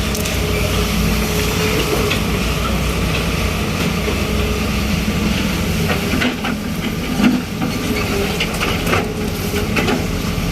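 Daewoo Solar 130W-III wheeled excavator's diesel engine running steadily, with scattered clicks and knocks in the second half.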